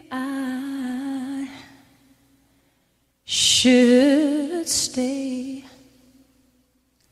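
A wordless sung vocal line from a gospel worship song: two long held notes with wide vibrato, each about two seconds, separated by about a second of silence. A breathy hiss opens the second phrase.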